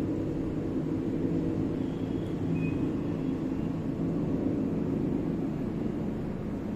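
Steady low droning hum with no speech over it.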